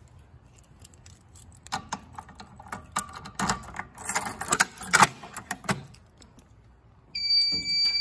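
Keys jangling and clicking against a Notifier fire alarm pull station as its reset key is worked, a run of metallic rattles and clicks. About seven seconds in, a steady high-pitched electronic tone starts from the fire alarm control panel.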